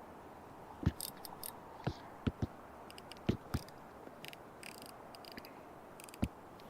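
Irregular soft thumps, seven in all, with faint high clicks between them: handling of a fishing rod and reel while working a lure.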